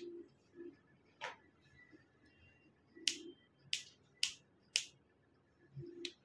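A series of about seven sharp, single clicks or snaps, unevenly spaced, with quiet room tone between them.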